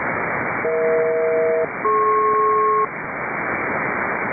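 An HF aeronautical voice channel on 6655 kHz, received on an Airspy HF+ Discovery SDR, hissing with static. Through it comes a SELCAL selective-call signal, the ground station paging one particular aircraft: two one-second pairs of steady tones at different pitches, with a short gap between them.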